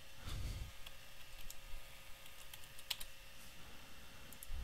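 Computer keyboard typing: scattered, irregular keystrokes, one sharper click about three seconds in, and a soft low thump just after the start.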